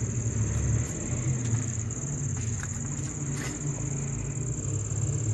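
Crickets chirring steadily at night, over a low rumble that is the loudest sound, with a few faint clicks.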